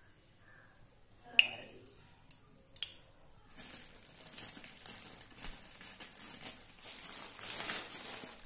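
Plastic packet of fryums crinkling as it is cut open with scissors and handled. A few sharp clicks come in the first three seconds, then steady crinkling from about three and a half seconds in.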